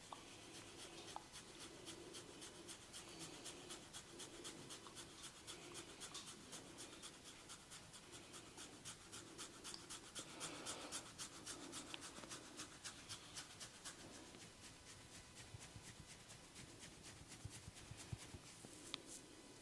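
Fingers scratching and rubbing through hair and scalp in quick, even strokes, about four or five a second, faint.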